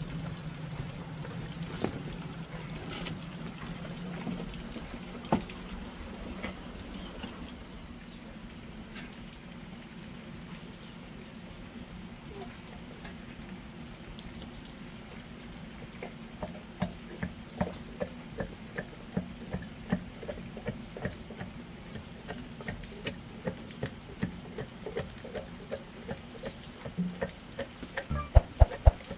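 Firewood crackling and popping, then from about halfway through a wooden pestle pounding in a metal cup in a steady rhythm of about two knocks a second.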